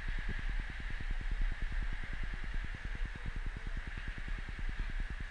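A motor or engine running steadily nearby, a low even pulsing of about ten beats a second, under a steady hiss.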